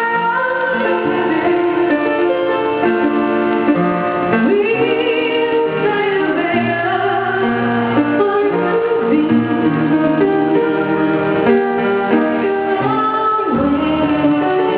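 A woman singing a ballad into a microphone, holding long, wavering notes over instrumental accompaniment.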